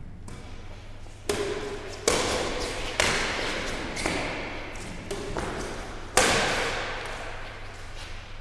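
Badminton rackets striking the shuttlecock in a rally, about six sharp hits roughly a second apart, each echoing in an indoor hall.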